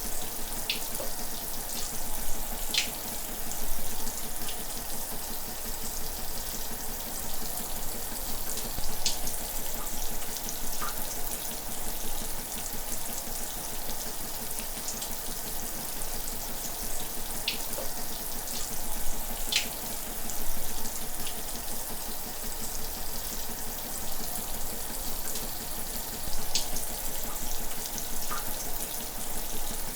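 Shower running steadily, its water spray making an even hiss, with a few brief high plinks of drops scattered through it.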